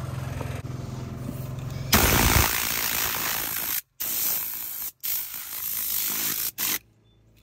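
Compressed air from an air compressor's blow gun hissing loudly as it blows crumbs out of the seams of leather car seats. It starts about two seconds in, breaks off abruptly twice and stops shortly before the end. Before it there is a steady low hum.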